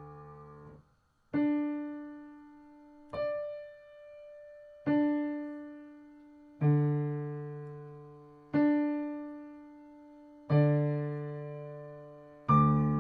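Piano-toned keyboard playing a slow line of struck notes and chords, about one every two seconds, each left to ring and fade. A held chord cuts off just under a second in, and seven strikes follow.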